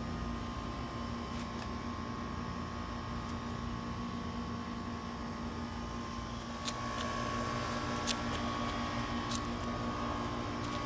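Air conditioner running at full blast: a steady whirring hum with a low tone and a higher tone that strengthens about halfway through. A few light clicks come in the second half.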